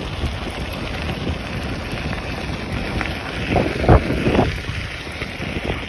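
Wind buffeting the microphone over the rumble of a mountainboard's pneumatic tyres rolling on a dirt track, with a few loud knocks about two thirds of the way in.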